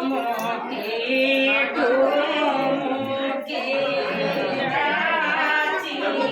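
Female singing in long, wavering held notes, with a short break about three and a half seconds in.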